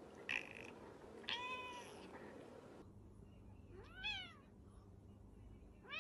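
Cats meowing: a brief sharp noise just after the start and one short meow about a second in, then an orange tabby cat meowing twice, each call rising then falling in pitch, the second right at the end.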